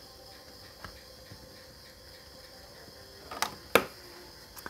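A plastic ballpoint pen being picked up and handled on the table: two sharp clicks about half a second apart, over faint room hiss.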